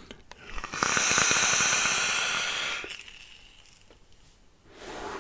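A draw on a single-coil rebuildable tank atomiser (Kelpie RTA): about two seconds of airflow hiss through the tank with crackling from the firing coil, then a softer breathy exhale of vapour begins near the end.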